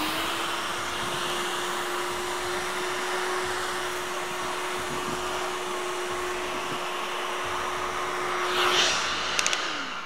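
Miele Triflex HX1 cordless stick vacuum running, its motor whine rising to full speed at the start and then holding one steady pitch over a rush of air. Near the end it is switched off and the whine falls away as the motor spins down.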